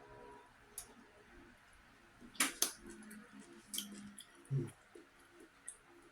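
Cutlery clicking and tapping against a plate during eating: a few scattered sharp clicks, the loudest two close together about two and a half seconds in.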